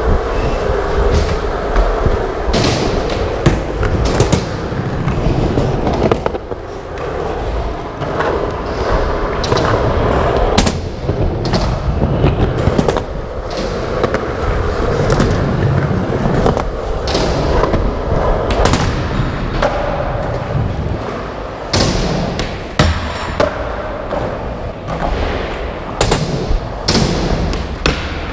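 Skateboard wheels rolling over concrete and wooden ramps, with repeated sharp clacks and thuds as the board is popped, landed and knocked during tricks.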